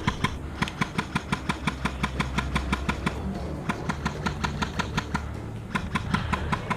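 Airsoft gun firing rapid strings of shots, about six sharp cracks a second, with two short breaks between strings, over a low rumble of wind and movement.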